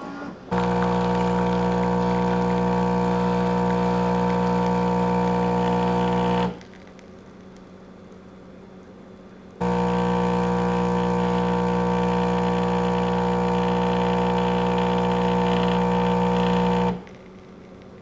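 Saeco Royal OTC espresso machine's pump humming steadily while it pushes water through the coffee for a double espresso. It runs for about six seconds, stops for about three, then runs again for about seven seconds.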